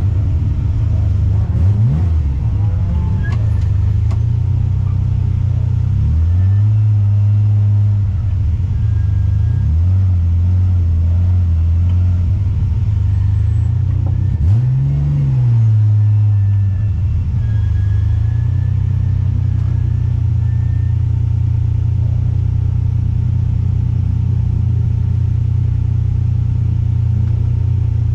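Alfa Romeo 156 race car's 3.2-litre V6 engine running, heard from inside the cabin. Its revs rise and fall several times in the first half, then hold steady.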